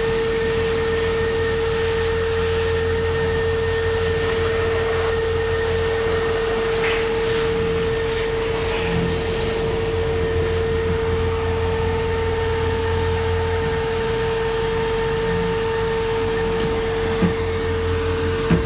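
A steady electric motor whine, like a shop vacuum running, holding one constant pitch throughout. A couple of short knocks come near the end.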